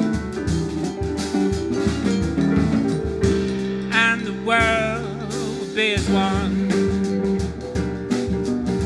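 Jazz combo playing an instrumental passage, with drum kit, guitar and piano; about four seconds in, a high melody line with wide vibrato comes in briefly over the band.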